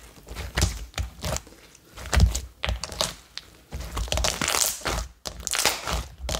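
Slime Yoda's ultra-thick glossy slime being stretched, folded and squeezed by hand, giving a string of irregular pops and crackles with soft thuds as air is worked into it to inflate it.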